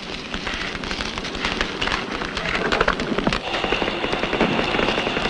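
Dense crackling made of many small rapid clicks over a hiss. A thin, steady high tone comes in about three and a half seconds in.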